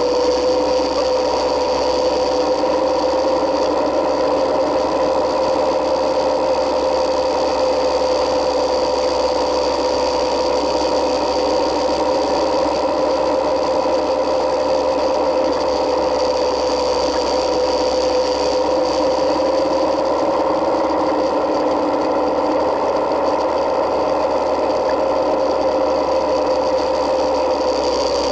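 Yamaha Midnight Star 1900's air-cooled V-twin engine running at a steady, even pace while riding, with road and wind noise underneath.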